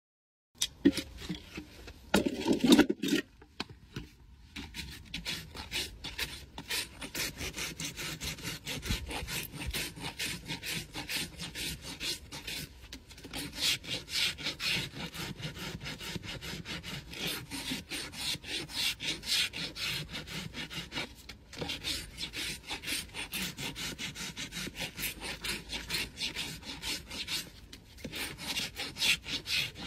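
Farrier's hoof rasp filing a Shire horse's hoof wall in rapid back-and-forth strokes, a dry rasping scrape that swells and eases in runs. A few loud knocks come near the start.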